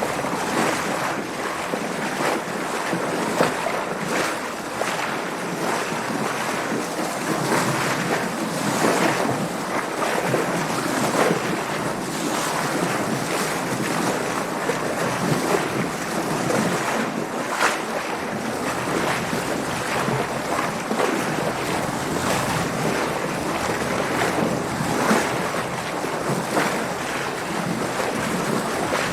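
Water splashing and washing around a sailboat under way in waves, with wind: a continuous wash broken by frequent short splashes.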